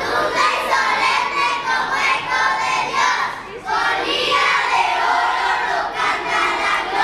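A group of schoolchildren reciting a poem aloud in unison, many voices together in a loud chorus delivered in phrases with short breaks between them.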